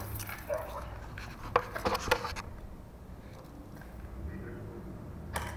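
A few sharp knocks and clicks from the camera being handled and set down on a wooden floor, bunched about one and a half to two seconds in, with one more near the end, over a low steady hum.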